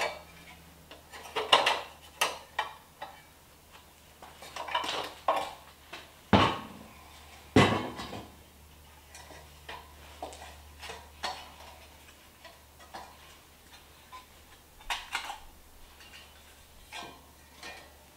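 Metal parts clinking and clattering as a stainless steel headlight trim ring and a rusty headlight bucket are handled and test-fitted into a grille's headlight pod. Scattered knocks and clicks, the loudest right at the start and around six to eight seconds in.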